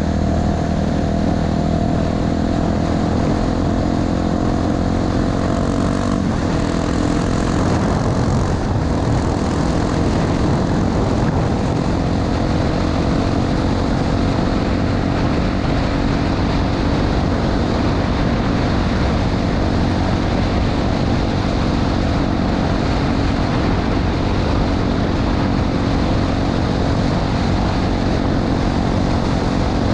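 Honda XR250 Tornado's single-cylinder four-stroke engine running at a steady cruise under a continuous rushing noise, its note shifting briefly about six seconds in.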